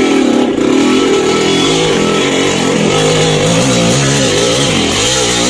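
Motorcycle engine running loudly, its pitch rising and falling again and again as the throttle is worked.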